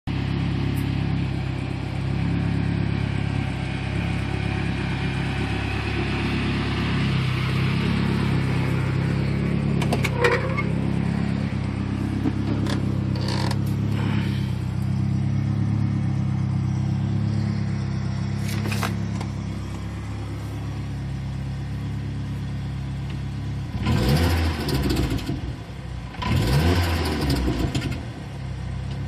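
Engine of a turbocharged Ranger pickup idling steadily for most of the time, with a few sharp clicks. Near the end it is revved twice in short throttle blips that rise and fall.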